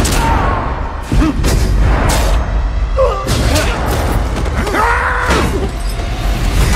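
Movie fight soundtrack: a dramatic score with a deep rumble, cut through by several hard hits and thuds, and a man yelling about five seconds in.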